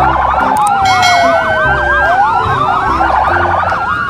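Several police car sirens sounding at once from a convoy, loud and continuous: fast yelping sweeps layered over slower rising and falling wails.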